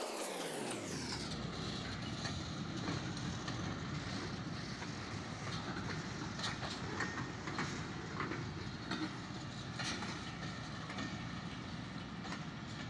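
A train rolling past: a railway crane wagon and passenger coaches, with the wheels clattering over the rail joints in a steady rumble. A tone slides down in pitch in the first second as the front of the train goes by.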